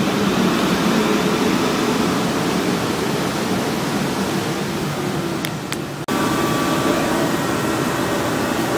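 A South Western Railway Class 450 electric train at close range, giving off a steady mechanical noise with a hum. About six seconds in the sound drops out for an instant, then comes back with a steady whine.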